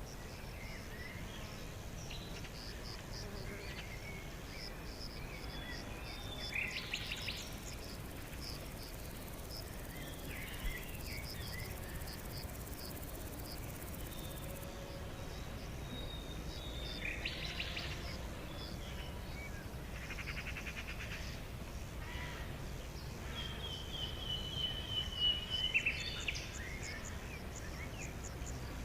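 Forest ambience: an insect keeps up a steady train of high chirps while several birds call at intervals, the loudest a run of calls near the end, over a low steady background rumble.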